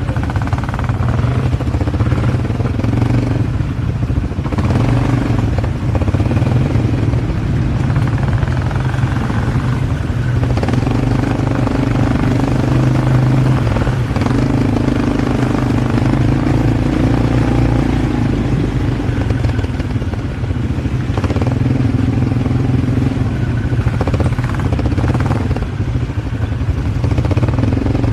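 ATV engine running steadily under way, its pitch drifting a little with the throttle, with clattering and rattling over the top.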